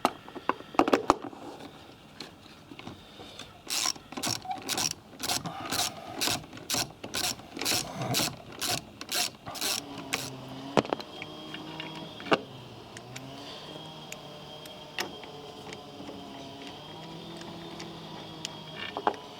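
Vehicle jack being worked to lift the van: a run of sharp mechanical clanks, evenly spaced at about two and a half a second, stopping about ten seconds in. After that comes a low wavering tone with a few single knocks.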